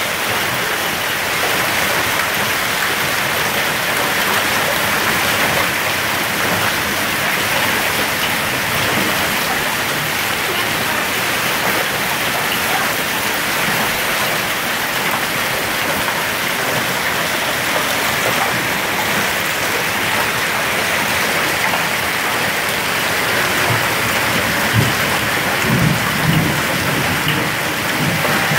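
A hailstorm with hail and rain falling heavily, a dense, steady patter on the ground and surroundings. A few louder low thuds near the end.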